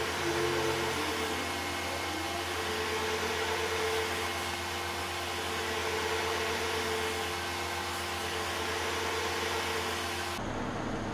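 Steady mechanical whir with a low hum, like a fan or motor running; the hiss drops away abruptly near the end, leaving a duller hum.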